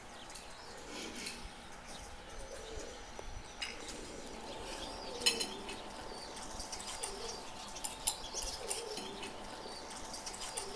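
Birds calling softly, with scattered light clicks.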